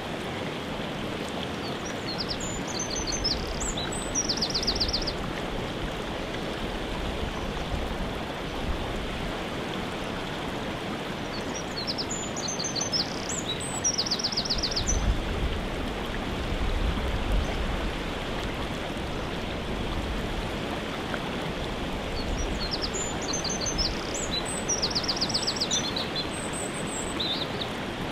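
Steady rushing of a waterfall. Over it, a songbird sings the same short high phrase three times, about ten seconds apart, each phrase ending in a fast trill.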